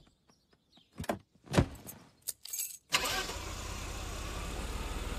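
A few knocks and clicks with keys handled, then a car engine starts about three seconds in and keeps running steadily.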